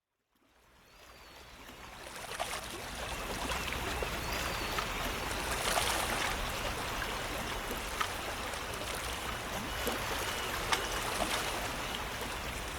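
Running water sound effect, like a stream or fountain flowing steadily, fading in over the first two seconds and cutting off suddenly at the end.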